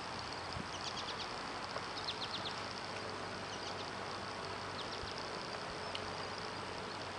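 Outdoor pond ambience: a steady high-pitched insect drone with scattered groups of quick high chirps, over a steady hiss.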